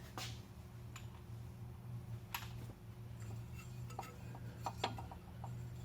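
Faint, scattered light metal clicks and taps from hand tools and parts being handled, over a steady low hum.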